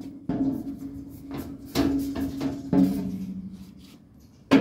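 Sheet-metal front service panel of a Mitsubishi Electric Mr. Slim outdoor air-conditioner unit clanking as it is handled and taken off. There are four knocks, each followed by a brief metallic ring, and the loudest comes near the end.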